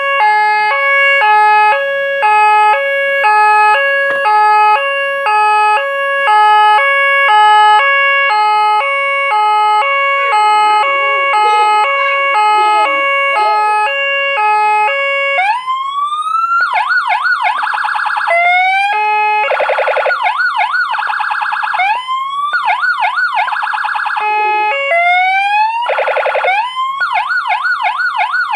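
CJB200HS electronic siren amplifier sounding its two-tone hi-lo police pattern, alternating between a high and a low tone about twice a second. About halfway through it switches to rising wail sweeps and fast warbling yelp tones, changing mode every few seconds, working after repair.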